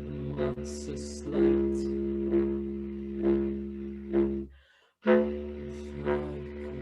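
Bass clarinet and double bass in free improvisation: sustained low pitched notes with a fresh accent about once a second, breaking off for a moment about two-thirds of the way through.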